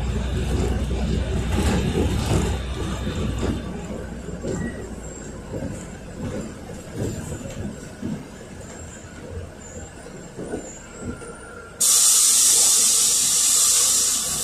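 Cabin sound of a NefAZ 5299 CNG city bus under way: a low engine rumble, strongest in the first few seconds and then fading, with interior rattles and knocks. About twelve seconds in comes a sudden loud hiss of compressed air from the bus's pneumatic air system, lasting about two and a half seconds.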